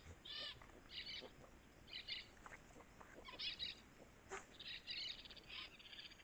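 Faint bird song: short, high chirping phrases repeated about once a second, from recordings of Brazilian forest birds.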